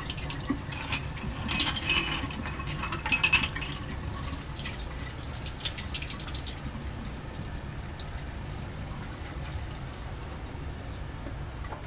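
Water running from a laboratory sink faucet into the sink while glassware is rinsed, with light clinks and clatter over the first six seconds or so.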